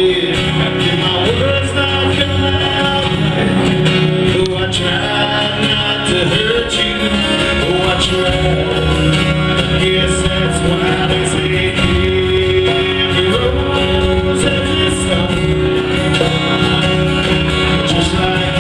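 Live country-rock band playing an instrumental break, a guitar carrying the lead line over bass and drums.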